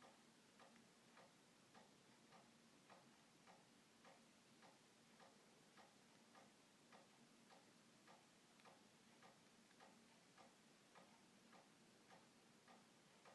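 Faint, even ticking, a little under two ticks a second, over a low steady hum.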